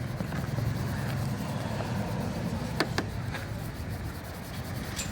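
A brush scrubbing wet car glass: steady rough rubbing, with two sharp clicks a little past the middle.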